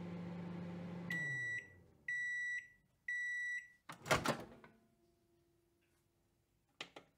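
Microwave oven running with a steady hum that winds down about a second in as the timer ends. Three beeps follow, a second apart, signalling the end of the cooking cycle, then the clunk of the door opening.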